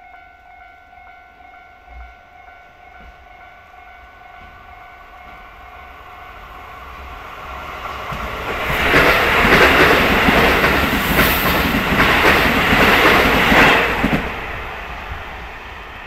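A train passing over a level crossing: its rumble and wheel clatter build from about six seconds in, are loud for some five seconds, and drop away near the end. The crossing's warning bell rings faintly at the start.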